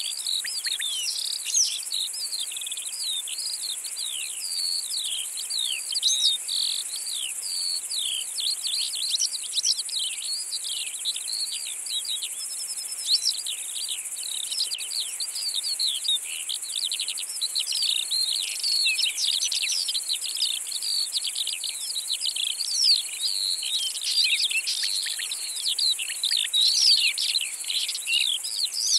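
Steady high buzz of a meadow insect chorus, with continuous rapid, overlapping chirping birdsong over it.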